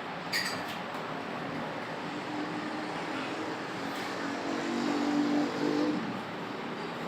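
Metal lathe running steadily while facing a car cylinder head, with a short click near the start and a low hum that grows stronger from about two seconds in, then eases off near the end.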